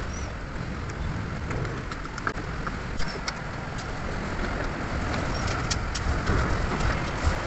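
Steady low rumble and hiss of a car workshop, with scattered light clicks and taps.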